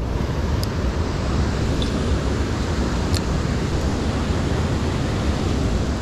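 Steady rush of water pouring out of a dam spillway, with a few faint clicks.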